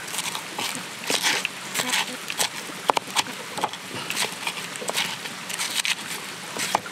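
Stone pestle crushing and grinding shallots, garlic, kencur and red chilies in a clay mortar, giving irregular crunching and scraping with a few sharp knocks of stone on clay.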